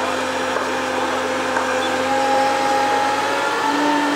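Fire brigade turntable ladder's engine and hydraulic pump running with a steady whine as the ladder moves. The pitch steps up about three and a half seconds in.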